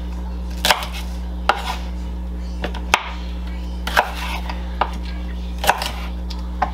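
Chef's knife chopping celery stalks on a wooden cutting board: sharp knocks of the blade onto the board, seven of them at an uneven pace of about one a second, over a steady low hum.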